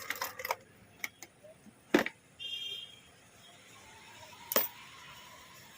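Scattered sharp clicks and knocks, the loudest about two seconds in, with a brief high electronic beep just after it and a faint steady tone near the end.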